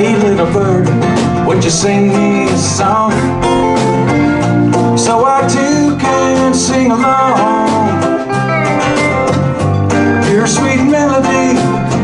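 Live country-folk band music: strummed acoustic guitar, electric guitars and fiddle over hand drums, playing steadily.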